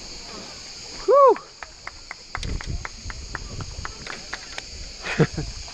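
Steady high chirring of insects, with a short voiced exclamation about a second in and a run of light clicks after it.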